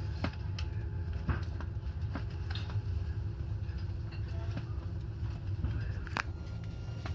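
Stadler Citylink Class 399 tram-train running along mainline track, heard from the driver's cab: a steady low rumble with a constant hum, and scattered clicks and rattles, one sharper click about six seconds in.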